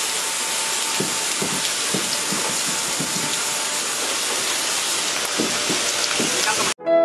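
Water spraying from the coach-washing plant's trackside spray pipes onto a passing train coach: a steady hiss with a few faint low knocks. It cuts off abruptly near the end.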